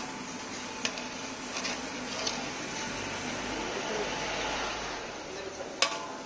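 Tapioca slices deep-frying in a large wok of hot oil: a steady sizzle, with the metal skimmer clanking against the wok, once sharply near the end.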